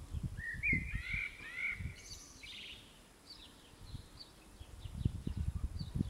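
Small songbirds chirping: a cluster of warbling calls in the first two seconds, then scattered short high chirps, over an irregular low thumping noise that grows near the end.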